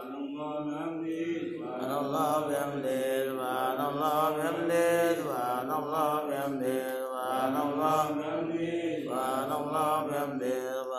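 Men's voices chanting Arabic devotional recitation in long, drawn-out melodic phrases, with a short break about seven seconds in.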